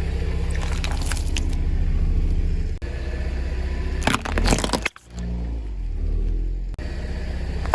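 A car engine runs steadily, with bursts of crunching and cracking as objects are crushed under the wheels, about a second in and again around four seconds in. The engine sound cuts out briefly three times.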